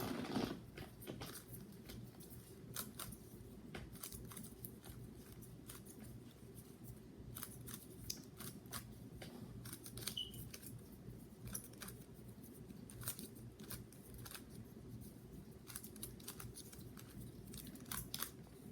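Light plastic clicking of a GAN 3x3 speed cube's layers being turned fast while it is scrambled: irregular clicks, several a second.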